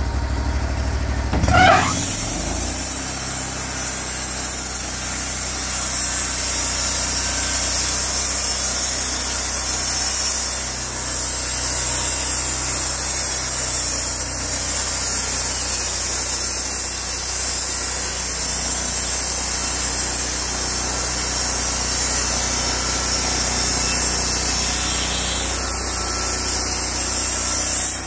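Wood-Mizer hydraulic portable band sawmill: its gas engine revs up from idle about a second and a half in, then runs steadily under load while the band blade saws lengthwise through an oak log, a steady high hiss over the engine. The engine eases off near the end as the cut finishes.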